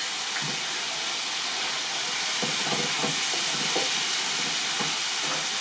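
Chicken and masala sizzling in a pan over a high gas flame: a steady, dense frying hiss as the masala is browned (bhuna).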